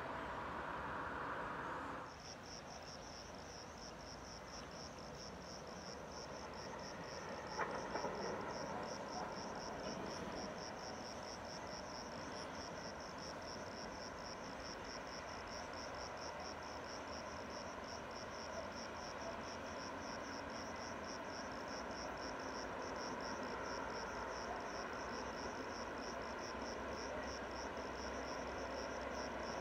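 An insect chirring in a high, fast-pulsing, unbroken trill, cricket-like, starting about two seconds in, over a low steady background hum. A broader noise before it stops abruptly about two seconds in.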